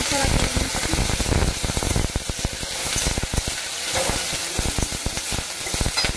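Small crab legs frying in hot oil in a metal kadai, a steady sizzle. A steel spatula scrapes and taps against the pan as they are stirred, most busily in the first couple of seconds.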